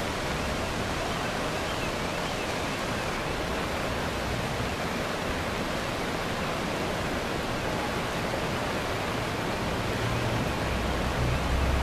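Steady rushing of a muddy flash-flood torrent pouring down a city street, with a low rumble swelling near the end.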